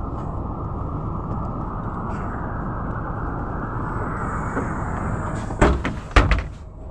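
Mercedes-Benz O405 city bus's diesel engine idling steadily at a stop, then two sharp knocks in quick succession near the end as the passenger doors close.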